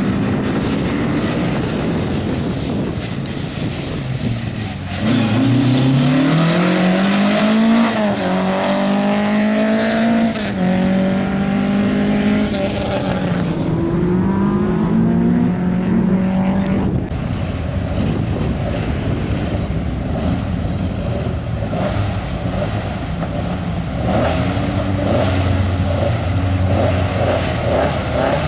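Mk2 Ford Escort rally car's engine revving hard, its pitch climbing and dropping repeatedly through gear changes. The sound changes abruptly a few times as the car is heard from different spots along the stage.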